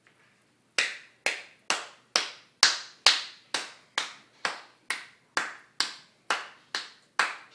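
Hands clapping in a steady beat, about two claps a second, each clap sharp with a short echo. The clapping starts about a second in.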